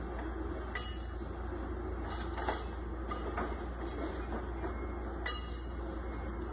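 Steady hum of factory machinery, with a few sharp clattering knocks of items and plastic crates being handled at a workbench.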